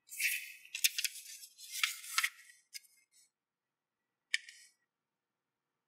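Square sheet of origami paper being folded in half by hand: rustling and sliding with sharp crackles for about two and a half seconds, then a few faint crinkles and one sharp crackle about four seconds in.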